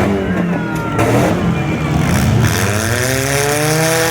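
Demolition derby car engines running, one revving up with a rising engine note from about two and a half seconds in.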